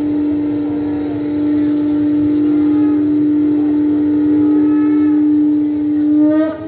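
Conch shell (shankh) blown in one long, loud, steady note, as at the Ganga Aarti ritual. The note swells and breaks off near the end.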